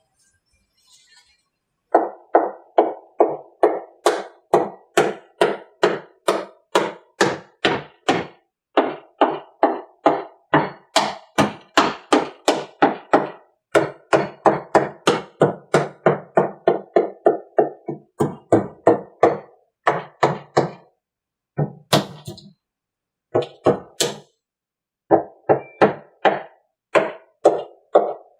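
Rubber mallet beating on a fiberglass mold, about three blows a second in runs broken by short pauses. The blows are shock to break the cured male mold free from the original female mold.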